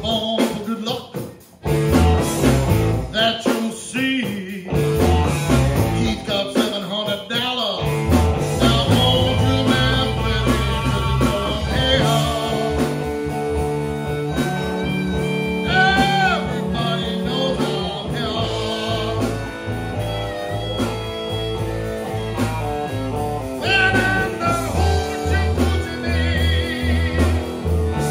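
Blues band playing an instrumental passage: electric guitars and electric bass through amplifiers, with a harmonica played into a cupped microphone and bending its notes.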